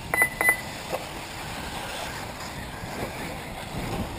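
Two short high electronic beeps in quick succession near the start, from the race's lap-timing system, then a small click about a second in, over steady outdoor wind-like background noise.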